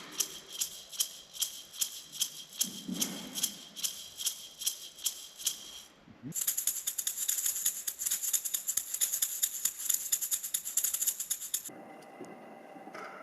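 A shaker or maraca being played: evenly spaced sharp shakes about two a second, then a continuous fast shaking from about six seconds in that stops near the end.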